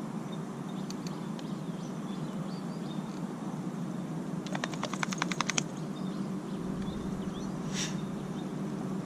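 Steady low outdoor hum with faint bird chirps. About halfway through comes a quick run of about ten sharp clicks lasting a second, and a brief hiss follows near the end.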